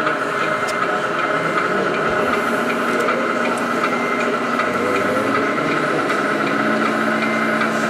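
Radio-controlled scale model trucks running, with a steady engine-like drone. A lower steady tone joins about six and a half seconds in.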